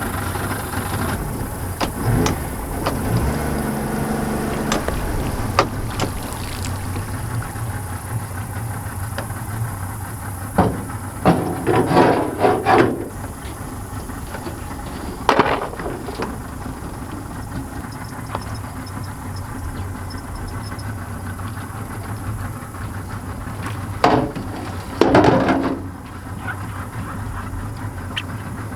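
A boat motor idling steadily, with clusters of knocks and clatters a little before halfway, once more just after, and again near the end.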